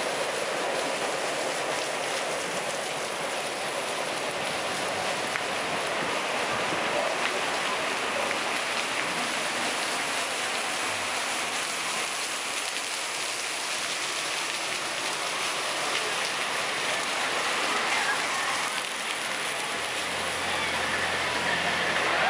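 Water rushing and splashing steadily through a raft ride's flume channel, heard from aboard the floating raft.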